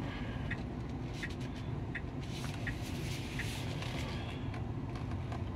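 Cabin noise of a Tesla electric car rolling slowly: a steady low road and tyre rumble with no engine note. A short, faint tick repeats about every 0.7 s over it.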